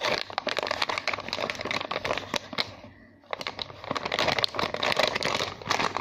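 Plastic packaging crinkling and rustling as it is handled, in two stretches with a short pause about three seconds in.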